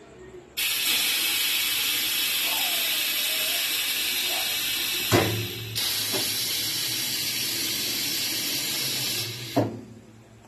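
Compressed air hissing from a pneumatic soap cutter's valve and cylinder as it pushes a soap block through the cutting wires. The hiss starts suddenly about half a second in and is steady. It is broken by a sharp knock about five seconds in, then ends with a second knock near the end.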